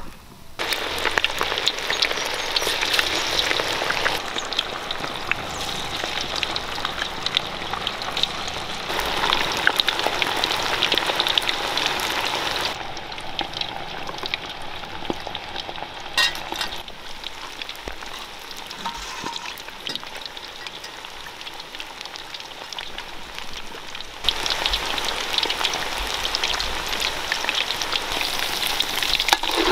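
Marinated chicken pieces deep-frying in groundnut oil, a dense sizzle and crackle of bubbling oil. It drops quieter about 13 seconds in and gets louder again around 24 seconds.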